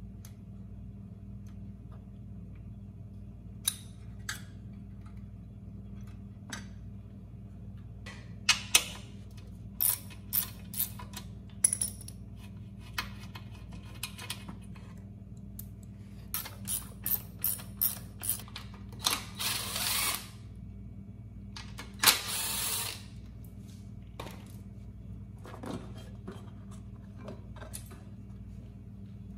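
Scattered clicks, knocks and rattles of hand tools and metal and plastic engine parts as the carburetor and cover parts are unfastened and lifted off a small engine, with a run of quick clicks and two short scraping bursts past the middle. A steady low hum underneath.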